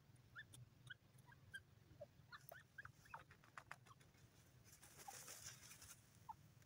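Faint short bird chirps scattered throughout, near silence otherwise, with a quick run of soft clicks about three seconds in and a brief soft hissing rustle about five seconds in.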